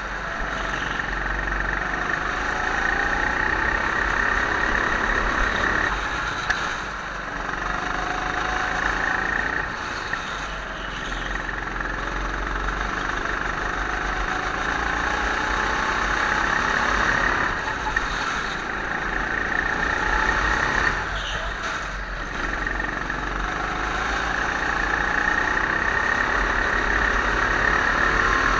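Go-kart engine heard from the driver's seat, running hard under throttle and dropping off briefly several times as the driver lifts for corners.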